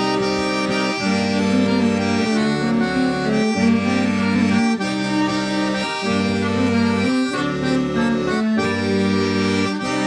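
A live folk band playing an instrumental break in a song: sustained chords over a bass line that changes about once a second, with no singing.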